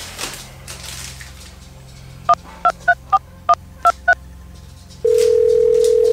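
Telephone keypad tones: seven quick two-note beeps as a number is dialled. About a second later a steady ringing tone starts on the line, the sign that the called phone is ringing.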